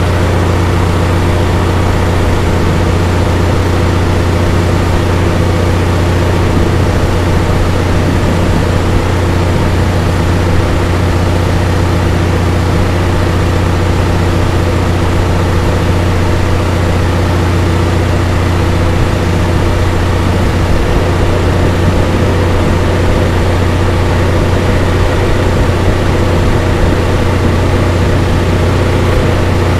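An engine running steadily at an even speed, a constant low drone, while steel cable winds back onto a winch drum under tension.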